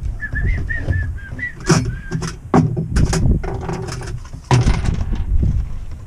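Irregular knocks and clatters of hands-on plumbing work on a shower valve installation, over a low rumble. A quick run of short, high chirping notes comes in the first two seconds.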